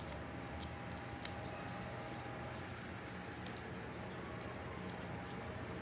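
Faint clicks and light scraping of a plastic anti-stress puzzle toy being handled and turned, over quiet room tone, with one sharper click about half a second in.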